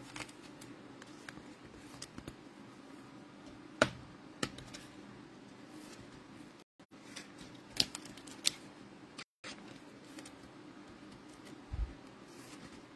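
Faint handling noise of trading cards and packs: a few scattered sharp clicks and taps, the loudest about four seconds in, and a low thump near the end. The sound cuts out completely twice for a split second.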